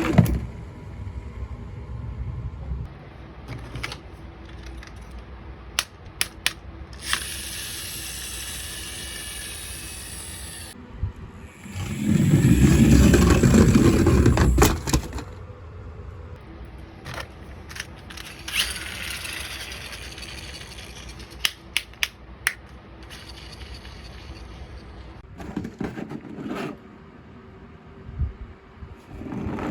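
Toys being handled: scattered sharp clicks and knocks with scraping and rustling, and a louder, deeper stretch lasting about three seconds near the middle.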